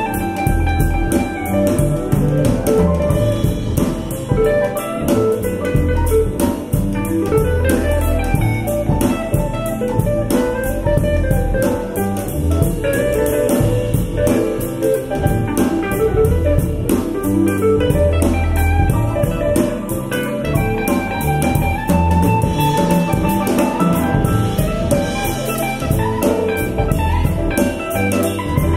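Music with guitar and a drum kit, played without pause.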